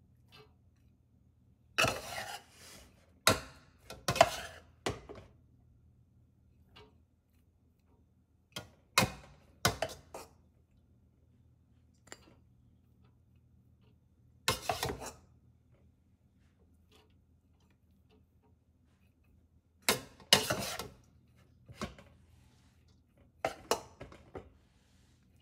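A bowl scooping and spreading cooked rice in a large metal pot, clattering and scraping against the pot in several short bouts with quiet stretches between.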